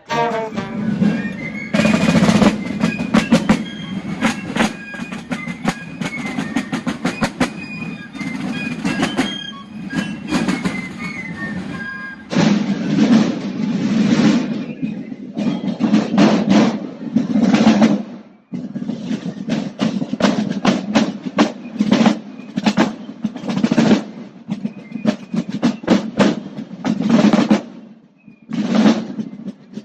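Basel carnival marching drums playing fast rolls and strokes in repeated phrases. For about the first twelve seconds a high piccolo melody plays over them; after that the drums carry on alone, pausing briefly twice.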